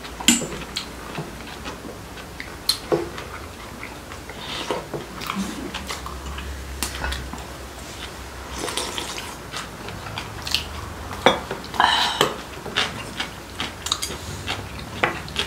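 Table eating sounds: chopsticks and a spoon clicking irregularly against bowls and plates, with a few longer stretches of soup being sipped.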